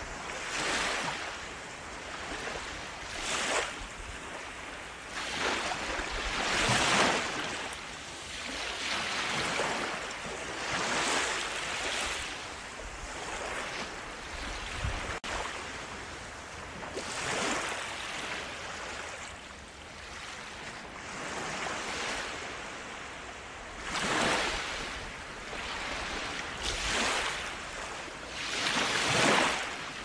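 Small waves breaking and washing up a sandy beach: a hiss of surf that swells and fades every few seconds.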